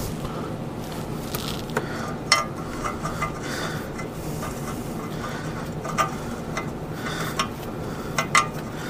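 Scattered sharp metallic clicks and clinks as an oxygen sensor is turned by a gloved hand into its threaded bung on the exhaust header. The loudest click comes about two seconds in and two come close together near the end, over a steady low hum.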